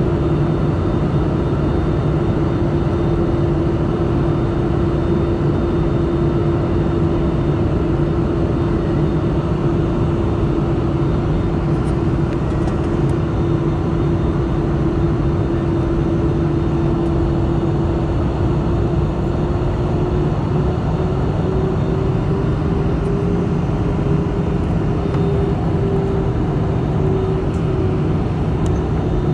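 Cabin noise of an Airbus A320-214 descending: a steady rush of airflow and CFM56 engine noise with a droning engine tone that rises slightly in pitch past the middle and eases back near the end.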